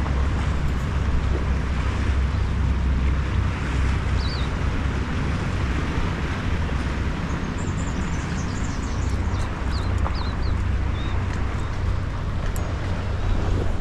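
Wind buffeting the microphone in a steady low rumble, over a broad rush of wind and water along the shore. Faint, short, high bird chirps come in the second half.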